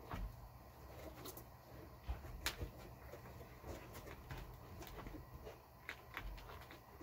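Faint scattered clicks and scrapes of a knife picking meat off a boiled bear skull in a pan, over a low steady hum.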